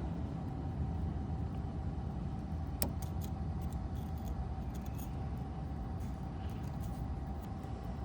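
Light metallic clicks of a Lishi pick-decoder working the wafers of a 1991 Ford Bronco lock, one sharper click about three seconds in, over a steady low rumble with a faint hum.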